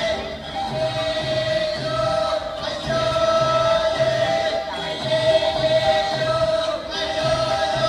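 Performance music with a choir singing over a held note and a low beat about twice a second.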